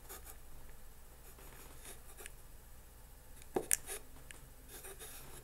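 Pen scratching faintly on paper as it writes, with a couple of slightly louder ticks a little past halfway.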